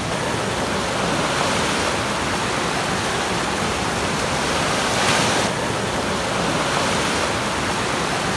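Steady rush of ocean surf breaking on a beach, with a brief louder surge about five seconds in.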